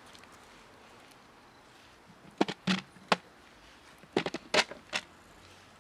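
A plastic food container with a clip-lock lid being handled and opened: two quick clusters of sharp plastic clicks and clacks, about three each, a couple of seconds apart.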